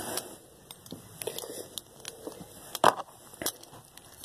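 Plastic Beyblade Burst parts (layer, disc and driver) being handled and fitted together: scattered small clicks and taps, with one sharp click a little under three seconds in.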